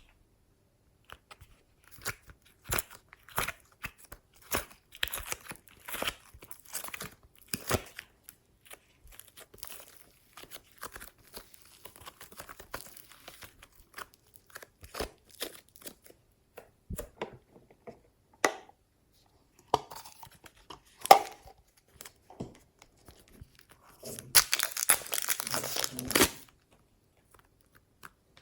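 Glossy slime being squished and stretched by hand, making irregular sticky pops and clicks. Near the end comes a denser stretch of crackling lasting about two seconds.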